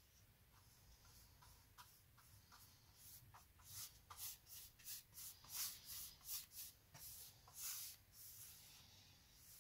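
Paintbrush bristles swishing against a plastered wall in short back-and-forth strokes, about three a second, starting about three seconds in and stopping near the end, with a few faint ticks before them.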